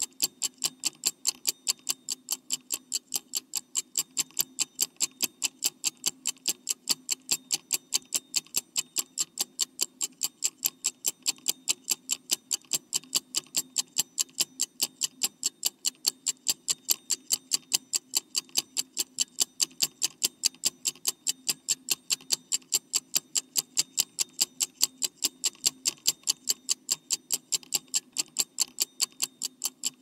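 Clock ticking sound effect for a countdown timer: sharp, evenly spaced ticks at a steady rapid rate, several a second, over a faint low hum.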